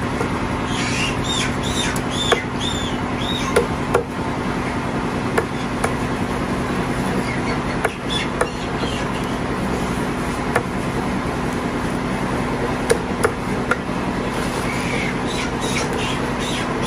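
Meat cleaver chopping raw chicken on a thick wooden stump chopping block: about a dozen sharp knocks at uneven intervals, over steady background noise with a low hum.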